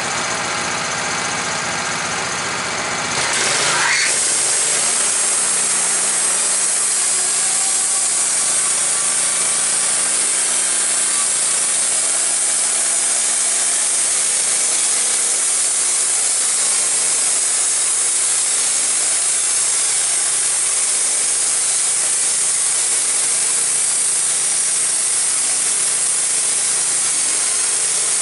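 Wood-Mizer LT15 band sawmill: its gas engine idles, revs up in a rising whine about three seconds in, then runs steadily at full throttle as the band blade saws through a white oak log.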